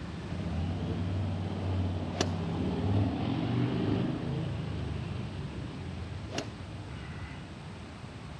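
Low rumble of a passing motor vehicle, swelling over the first few seconds and then fading away. Two faint sharp clicks come about two seconds in and about six seconds in.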